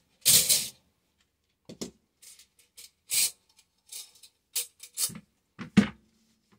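AR-15 buffer and buffer spring being pulled out of the buffer tube: a string of short metallic clicks, scrapes and rattles from the spring coils and buffer. The loudest is a scrape just after the start.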